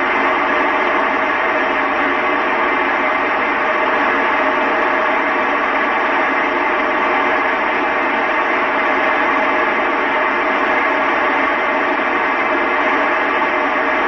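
Steady FM static hiss from a 2 m amateur radio transceiver tuned to the ISS downlink near 145.800 MHz, with no signal coming through the speaker.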